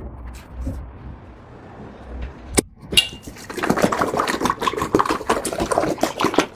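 Pets eating from their dishes: two sharp clinks, then about three seconds of rapid clinking and clatter against the bowls.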